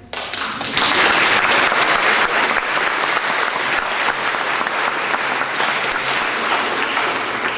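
Audience applauding: many hands clapping, swelling within the first second, holding steady, then fading near the end.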